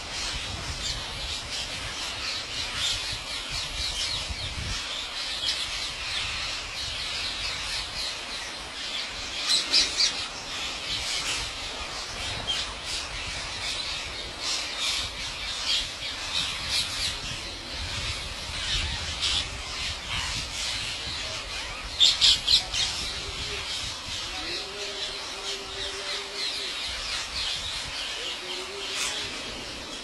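A large feeding flock of rose-ringed parakeets squawking, a dense unbroken chorus of high-pitched calls. A few louder calls stand out about ten seconds in, and three loud calls come in quick succession just past twenty seconds.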